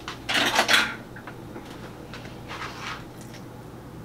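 Kitchen handling noises as a measuring spoon is fetched and a plastic-lidded mayonnaise jar is opened and scooped from. There is a loud clattering rustle about half a second in, then a softer scrape near three seconds.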